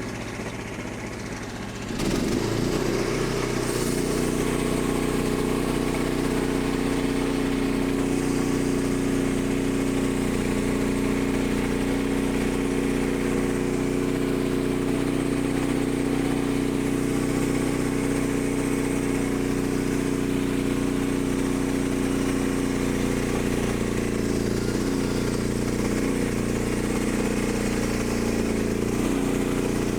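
Portable band sawmill's gas engine speeds up about two seconds in, then runs steadily under load as the band blade cuts through a red oak log.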